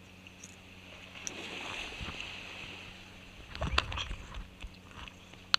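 Sea water washing among shore rocks, with rubbing and knocks against a body-worn camera as the angler climbs over boulders: a cluster of knocks past the middle and one sharp click near the end.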